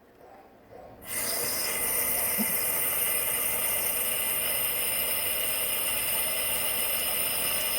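Tap water starts running about a second in and keeps up a steady hiss, rinsing dust off a squishy stress ball.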